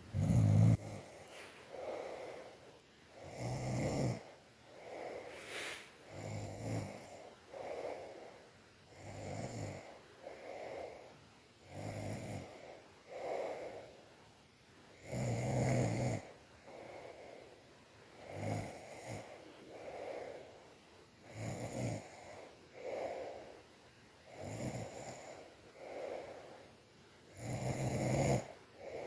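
Snoring: a loud, low snore about every three seconds, with softer, breathy snores in between.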